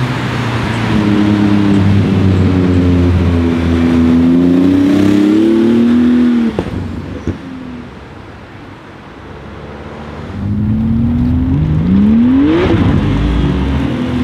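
Porsche 991 GT2 RS's twin-turbo flat-six accelerating hard, its pitch climbing and stepping down through several gear changes. The sound then fades, and a second hard run revs up steeply, peaking about two-thirds in before falling away.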